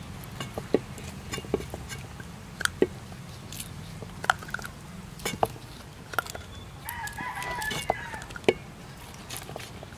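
A rooster crows once, about seven seconds in, a single call of just over a second, amid scattered sharp clicks and taps.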